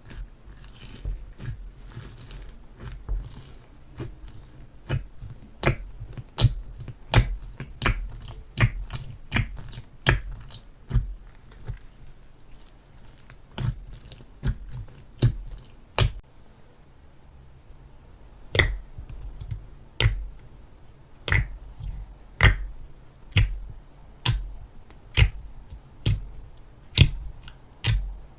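Slime being squished and poked by hand, making a string of sharp, wet pops and clicks about one or two a second, with a pause of about two seconds past the middle.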